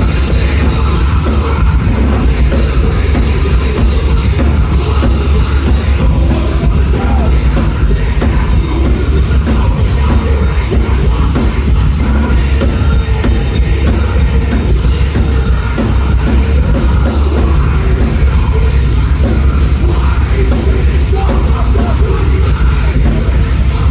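A live heavy rock band playing loudly, with a deep, heavy bass guitar, a drum kit and a vocalist singing into a microphone.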